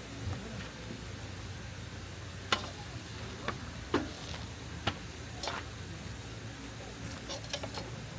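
Food sizzling as it cooks, with several sharp clicks and taps of utensils against the pan, and a few lighter ticks near the end.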